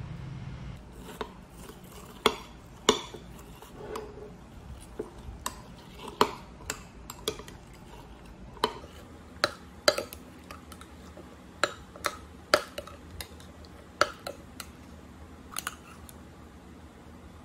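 Metal spoon clinking against a drinking glass while stirring thick blueberry yogurt, with irregular sharp clinks about once a second.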